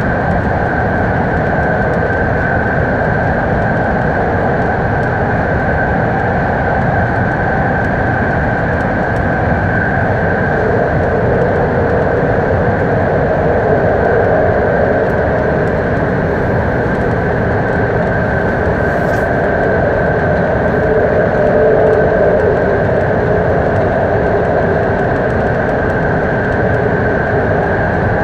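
BART train running at speed through the Berkeley Hills Tunnel, heard from inside the front car: a steady, dense rumble of wheels and motors with a constant high whine above it.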